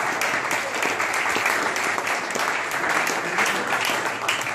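A crowd of people applauding, dense clapping all through.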